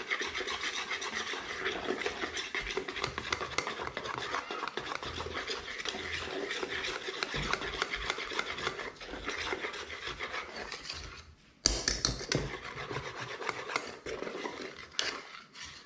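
Wire whisk beating pancake batter in a metal basin: a fast, continuous scraping and clinking of wire against the bowl, stopping briefly about two-thirds of the way through before starting again.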